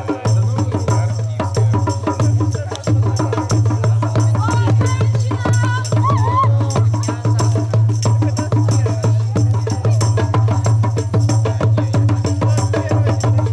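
Folk-style music with fast, dense drumming and percussion over a steady low drone, with a few voices calling out over it about halfway through.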